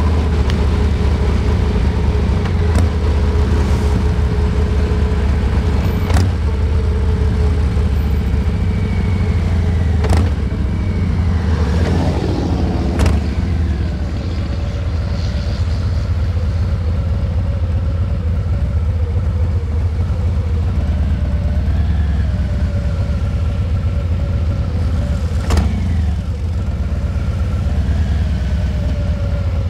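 Harley-Davidson Heritage Classic 114's Milwaukee-Eight 114 V-twin engine running steadily while riding. About four sharp clicks are scattered through it.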